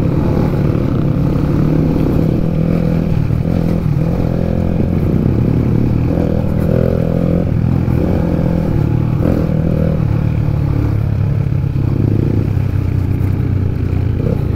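Crossfire dirt bike engine running as it climbs a hill road, its pitch rising and falling several times with the throttle.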